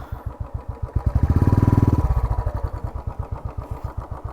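Motorcycle engine idling with a steady, even putter, revved up briefly about a second in for about a second before dropping back to idle.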